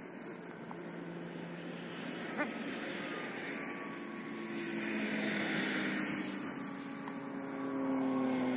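Vehicles passing on an expressway: a steady traffic hum that swells as vehicles go by, loudest about halfway through and again near the end, with engine tones sliding slowly down in pitch.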